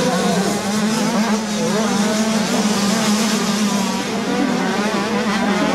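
Engines of 60cc motocross minibikes racing on a dirt track, their pitch rising and falling as the riders work the throttle.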